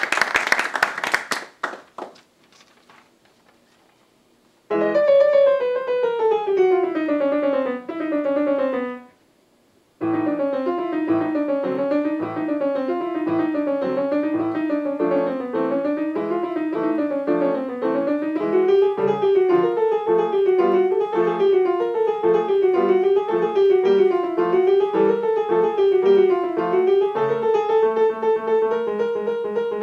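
Applause dies away over the first couple of seconds, and after a short hush a grand piano begins. It plays a falling opening phrase, pauses for about a second, then runs on in a flowing line of rolling, wave-like figures that settles onto held notes near the end.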